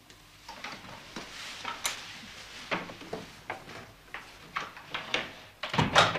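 A run of light knocks and clicks, with a louder knock just before the end.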